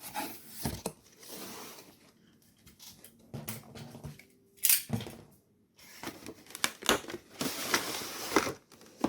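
Cardboard toy box being opened by hand and emptied: irregular tearing and rustling of cardboard and packaging, with several sharp knocks and clicks, busiest in the second half.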